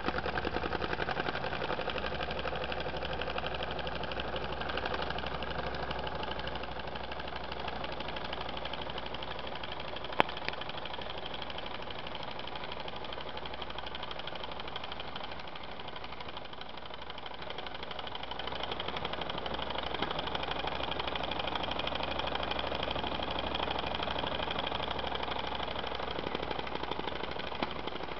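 Small model steam engine with twin oscillating cylinders running fast, giving a rapid, even chuffing of exhaust beats. One sharp click comes about ten seconds in, and the running dips a little in level midway, then picks up again.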